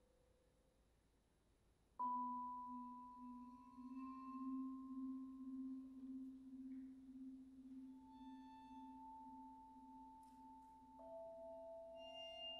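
Near silence, then about two seconds in a low note and a high note sound together and ring on, the low one pulsing gently; two more high notes enter later, each a little lower than the last. Sparse contemporary chamber music from an ensemble of voices, mallet percussion, cello and double bass.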